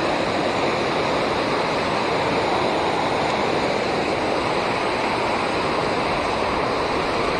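River water rushing in a steady, even roar.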